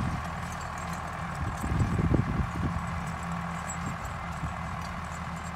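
1971 David Brown 990 tractor running steadily while it works a Woods bush hog rotary cutter across a field, with a few irregular low knocks around two seconds in.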